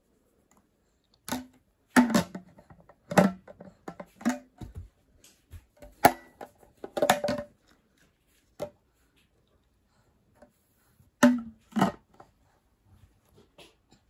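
Green plastic lid of a clear plastic tea pitcher clacking and knocking against the jug as a toddler opens and closes it. About ten sharp, irregular clacks come in a cluster, then a pause of a few seconds, then two more near the end.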